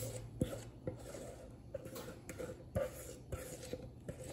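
Thick lemon-bar filling pouring from a stainless-steel mixing bowl into a glass baking dish. It is faint, with a scatter of small clicks and light scrapes about every half second from the bowl being handled over the dish.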